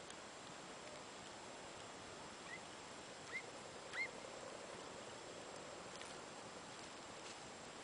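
A hound far off giving tongue on a hare's trail: three short, faint yelps, the last the loudest, over a quiet open-field background.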